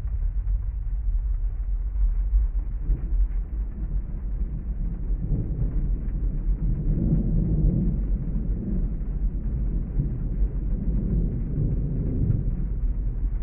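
Muffled rain ambience heard as from inside a parked car, a steady low rumble. A long rolling rumble of distant thunder swells up about five seconds in and eases off near the end.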